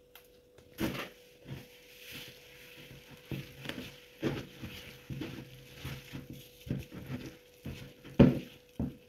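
Spatula stirring sticky, wet dough in a plastic bowl: irregular squelching and scraping with knocks against the bowl, louder about a second in and near the end.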